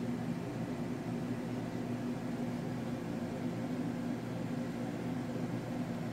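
A steady, low mechanical hum that keeps the same pitch and level throughout.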